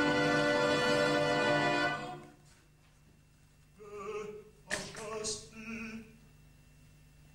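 Operatic tenor singing a loud held note that breaks off about two seconds in. After a short hush come brief, broken sung phrases, with a sharp knock between them.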